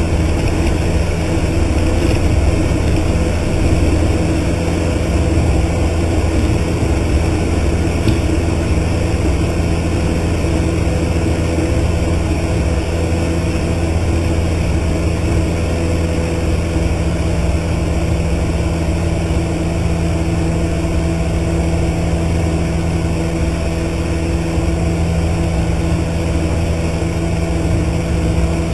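Cessna 152's four-cylinder Lycoming O-235 engine and propeller running steadily at takeoff power through lift-off and climb-out, heard inside the cabin as an even drone.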